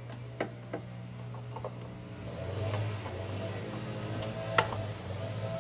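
A few scattered sharp metal clicks and taps from a wrench working on the control-arm bolts, with one louder clank about four and a half seconds in, over a steady low hum.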